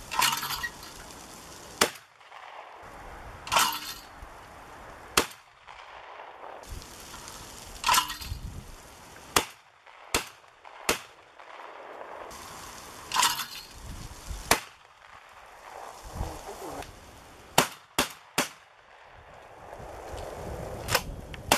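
12-gauge Remington Versa Max semi-automatic shotgun firing at clay targets: about ten sharp shots, some single and some in quick strings of two or three. About a second and a half before each of the first few shots comes a longer, rougher noise from the clay thrower being released.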